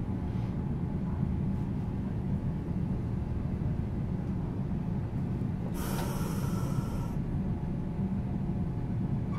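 Steady low rumble inside a 1950 Nippon Sharyo-built Nagasaki Electric Tramway Series 202 tram, with a short hiss of escaping air lasting about a second and a half, about six seconds in.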